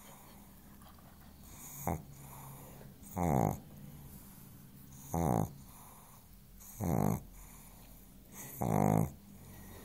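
A sleeping pug snoring, with five snores at roughly even intervals of one and a half to two seconds, the first one short.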